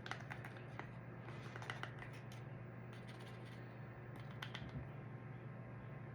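Faint scattered clicks and light taps of small kitchen items being handled while spices are measured, over a steady low hum.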